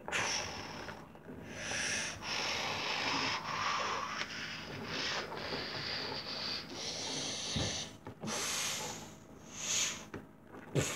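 A person making raspy, hissing breath sounds with the mouth as a monster's sound effect, in drawn-out breaths of a second or two each.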